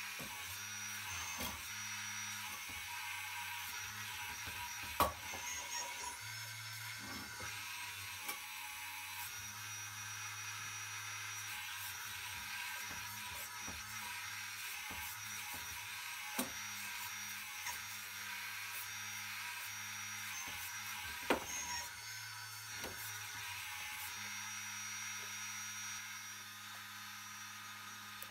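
Small electric hydraulic pump of a home-built RC excavator running steadily, driving the boom and arm cylinders. Two sharp clicks stand out, one about five seconds in and one past the middle.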